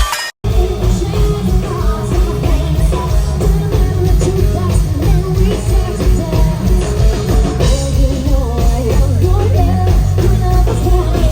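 Background music: a song with a singing voice over a steady beat. It starts abruptly after a brief dropout at the very beginning.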